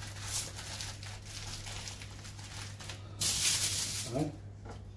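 Aluminium foil crinkling and rustling as it is folded and crimped around food by hand, with a louder stretch of crinkling about three seconds in. A short vocal sound comes just after it, over a steady low hum.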